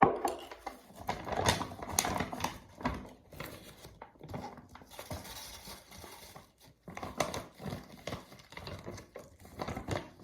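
Slime being stirred in a cup with a utensil: irregular clicks, taps and scraping, with a sharp knock right at the start.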